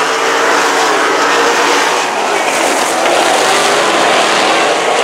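A pack of winged RaceSaver 305 sprint cars racing at speed, their V8 engines loud and overlapping, with the engine notes wavering as cars pass and go down the straight.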